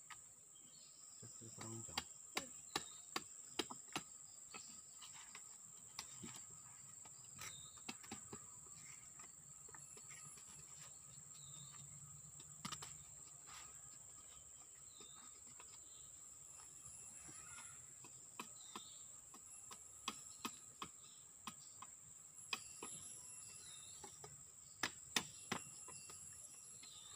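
A machete blade cutting and shaving at a piece of wood being carved into a toy parang, heard as short sharp ticks in runs of a few a second. A steady high-pitched insect drone runs behind.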